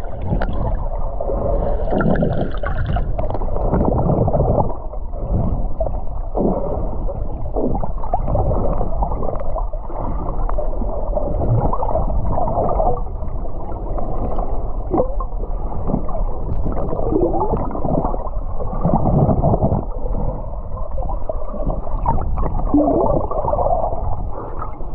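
Muffled gurgling and sloshing of seawater heard through a camera held underwater, a constant low rumble with irregular bubbling surges.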